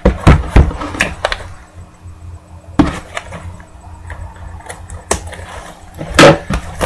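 Plastic shrink-wrap on a trading-card hobby box crinkling and being torn off, with a series of sharp knocks as the box is handled.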